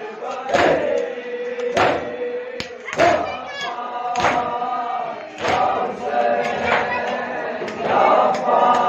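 A group of men chanting a Shia mourning lament (nauha) in unison while beating their chests with their palms (matam), the slaps landing together about once every 1.2 seconds.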